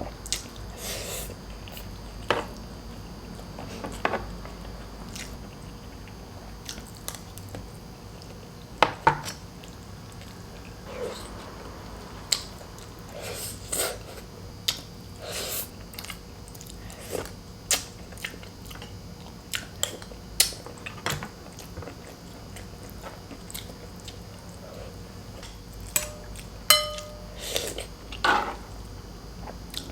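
Close-miked mukbang eating: a person chewing and biting boiled pork leg and rice, with irregular wet smacks and clicks, the loudest about 9 s in. A short ringing clink sounds near the end.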